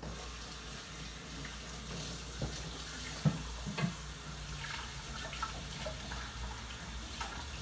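Kitchen faucet turned on suddenly and running steadily into the sink, with a few light knocks.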